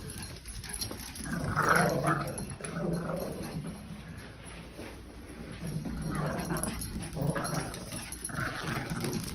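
Two dogs growling at play while they chase each other, in several rough bursts, loudest about two seconds in and again near the end.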